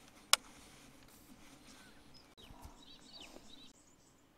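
A single sharp click about a third of a second in, then faint bird chirps over a quiet bush background.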